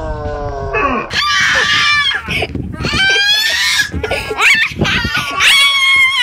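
A child's high-pitched squeals and shrieks of excitement, several in a row, inside a plastic playground tube.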